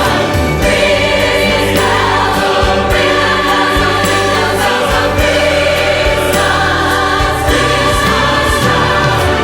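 Choir singing Christmas music with an orchestra, with regular percussion hits through the music.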